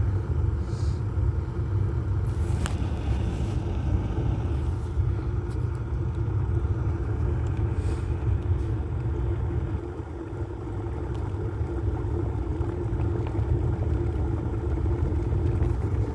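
Electric kettle heating water close to the boil: a loud, steady rumble from the water.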